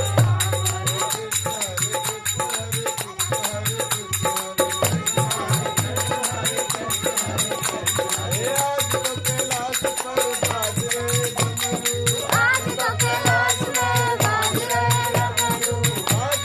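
A Hindu devotional bhajan: a singing voice with hand percussion keeping a steady beat.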